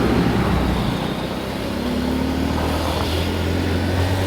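Motor vehicle engine running steadily, with its pitch rising slightly in the second half.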